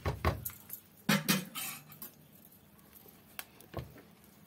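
A few separate clinks and knocks of kitchen utensils against metal cookware. The loudest come about a second in, with single knocks near the end.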